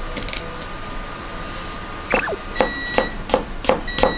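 Kitchen knife slicing burdock root thinly on a cutting board. A few knocks come near the start, then from about halfway a steady run of crisp knife strokes, about three a second.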